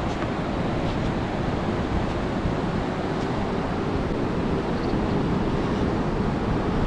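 Steady rushing noise of wind on the microphone mixed with ocean surf breaking on the shore.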